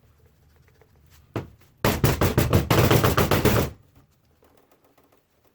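A single knock, then a loud, rapid clatter of knocks and rattles lasting about two seconds before it stops.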